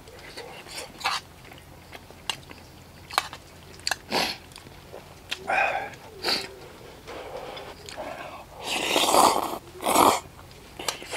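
A person eating black-bean instant noodles with chopsticks from a metal bowl: wet chewing and slurping, with small clicks of the chopsticks against the bowl. The longest, loudest slurp comes about nine seconds in, followed by a shorter one.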